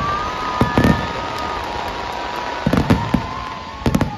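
Fireworks display: shells bursting with sharp bangs about a second in, near three seconds and near the end, over continuous crackling, with long steady whistles from whistling fireworks.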